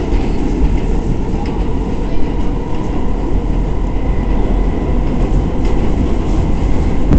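Steady low rumble of an R46 subway car running through the tunnel, heard from inside the car, with faint clicks of the wheels over rail joints and a faint high whine partway through.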